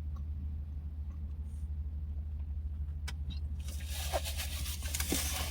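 A steady low hum with a few faint chewing clicks. About three and a half seconds in, crinkling and rustling of packaging starts and carries on.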